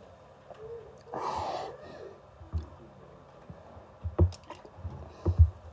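A person gulping Coke straight from a can, a series of soft, low swallows. A short breathy rush comes about a second in.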